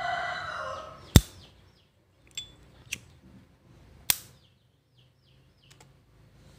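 Sharp metallic clicks from an S.T. Dupont Line 2 lighter's lid being worked. There is a loud click about a second in, two smaller clicks, and another loud click about four seconds in. A rooster's crow trails off in the first second, with faint bird chirps behind.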